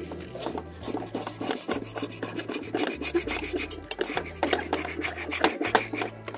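Metal scraper rasping across a thick steel griddle plate in quick repeated strokes, scraping off grease and burnt-on residue while the plate is still warm.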